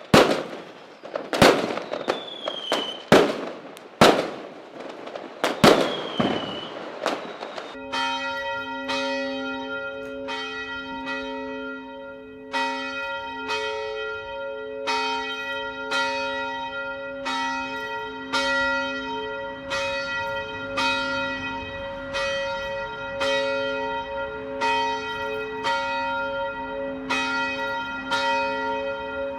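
Several sharp firecracker bangs, some followed by a short falling whistle. After an abrupt cut about eight seconds in, a church bell tolls steadily, about one stroke a second.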